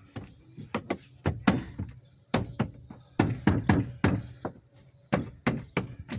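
Repeated knocks and thumps of a hand striking an interior trim panel of a Dodge Caravan to snap it into its clips, coming in uneven bunches of a few blows at a time.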